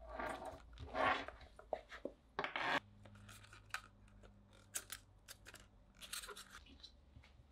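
Cardboard and paper cable-wrap packaging being handled: three louder rubbing swishes in the first three seconds as a card sleeve slides along the paper, then light scrapes, taps and clicks.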